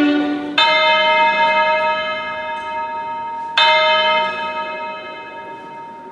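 A bell struck twice, about three seconds apart, each stroke ringing on with several steady tones and fading slowly. Just before the first stroke, the tail of a held music note dies away.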